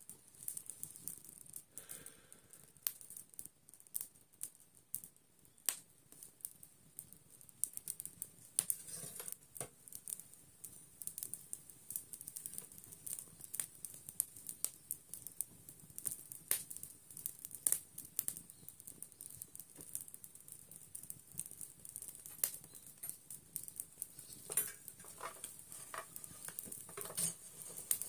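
Irregular sharp crackles and small clicks, scattered unevenly throughout, over a faint steady hiss.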